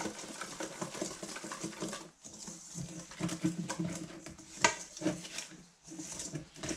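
Wire whisk beating a thick, stiff pancake batter of flour and plant milk in a stainless steel bowl, with a quick run of wet scraping and clicks as the wires knock the metal. One sharper clink comes a bit over halfway through. The batter is still too thick and needs more milk.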